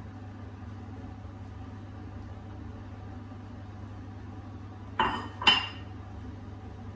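Kitchenware clinking over a steady low hum: two sharp knocks about half a second apart, a little after five seconds in, as a ceramic bowl is put down and a spoon goes into a steel soup pot.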